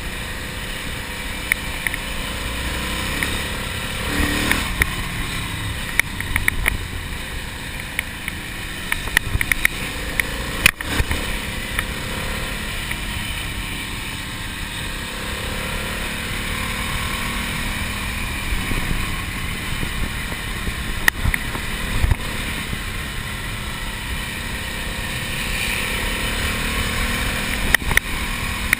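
Ducati Monster motorcycle's air-cooled L-twin engine running at road speed under heavy wind rush, its pitch rising and falling as the rider works the throttle. Sharp knocks and clicks come now and then.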